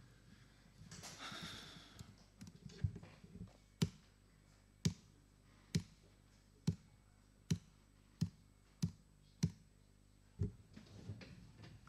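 Laptop keys being tapped close to the microphone: a run of about eight sharp clicks, roughly one a second, then a duller knock near the end.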